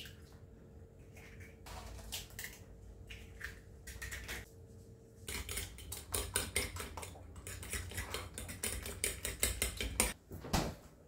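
An egg cracked into a ceramic bowl at the start, with a few light knocks. From about halfway, metal cutlery beats the eggs against the bowl in a fast run of clinks.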